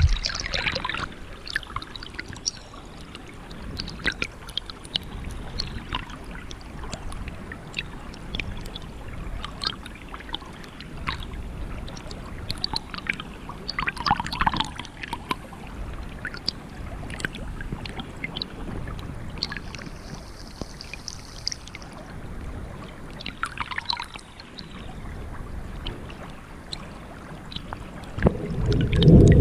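Stream water heard by a submerged camera: a steady low rumble of flowing water, scattered small clicks and now and then a gurgle. It grows louder near the end.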